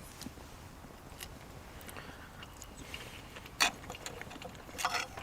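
Quiet background with scattered small clicks and knocks: one sharp click about three and a half seconds in and a short cluster of clicks near the end.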